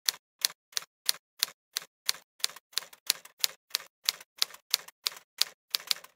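Typing sound effect: single sharp key clicks at an even pace, about three a second, one for each letter typed into the on-screen address bar.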